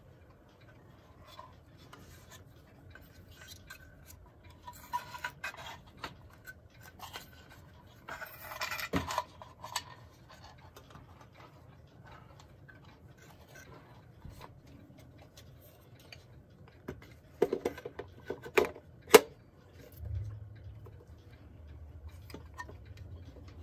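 Clock movement being fitted back into its case: scraping and rubbing of the parts about five and eight seconds in, then a quick series of sharp knocks and clicks, the loudest near the end. A steady low hum comes in after that.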